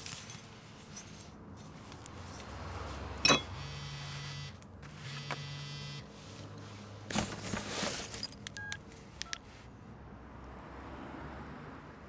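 An electric doorbell buzzer sounds twice, each buzz about a second long, just after a sharp click. Later come a few short mobile-phone key beeps.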